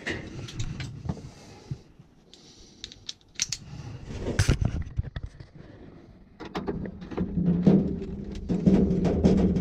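Metal parts and hand tools clinking and clattering as they are handled, in scattered sharp knocks. About two-thirds of the way in, a steady low hum joins them and gets louder.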